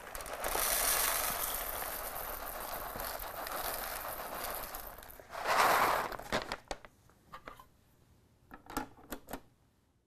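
Whole roasted coffee beans poured from a bag into the clear plastic bean hopper of a Gaggia Velasca espresso machine: a steady rattling pour for about five seconds. A louder burst follows near six seconds in, then a few scattered clicks as the beans settle.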